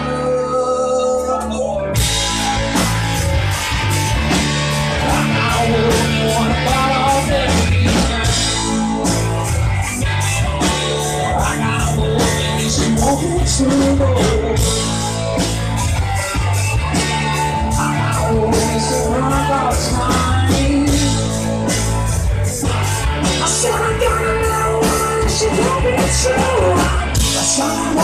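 Live rock band playing an instrumental passage: two electric guitars over bass and drum kit. The drums and cymbals come in about two seconds in.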